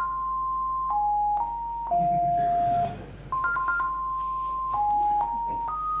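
An old-school Nokia ringtone from an RTTTL file, played by a browser's Web Audio oscillator as plain sine-wave beeps. It is a one-note-at-a-time melody of quick short notes and longer held ones, and the same phrase starts again about halfway through.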